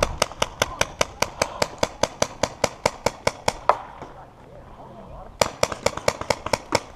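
Paintball marker firing rapidly, about seven shots a second in a steady stream; it stops about four seconds in and resumes a second and a half later.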